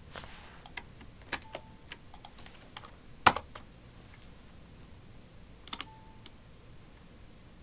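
Computer keyboard keys pressed in scattered, irregular clicks, the sharpest and loudest a little over three seconds in, with a few more keystrokes near six seconds.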